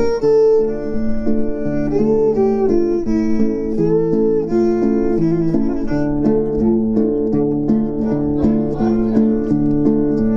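Acoustic guitar and violin playing a slow tune together, held violin notes over plucked guitar, with the plucking getting busier in the second half.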